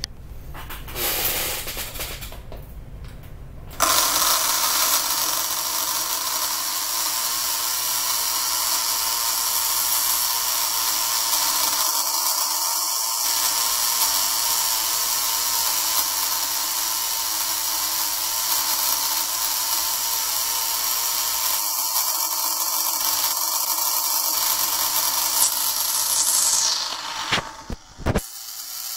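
Bench machine for reworking a Bosch common rail injector valve seat running, its striker hammering the seat at a high, tripled striking rate: a steady rapid buzz that starts about four seconds in.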